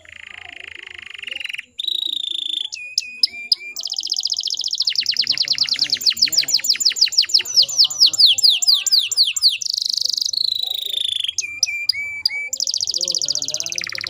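Domestic canary singing a long rolling song of trills: a buzzy trill at the start, short chips, then a fast run of repeated falling notes through the middle, and further trills near the end.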